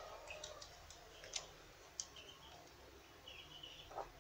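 Scattered light clicks and ticks of hand-work on plastic hose fittings and a small metal hose clamp.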